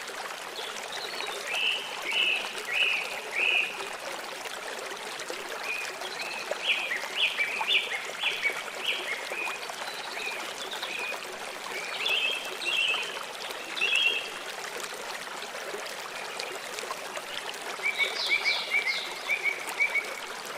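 Steady rush of running water, with short bursts of high chirping calls repeated several times in quick series, four times over.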